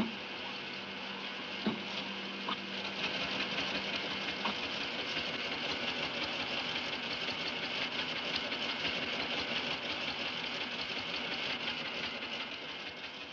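A Honeywell 200 mainframe computer: a few sharp clicks of console switches over a steady hum, then from about three seconds in a fast, steady mechanical clatter of its peripheral machinery running. The hum stops about four seconds in.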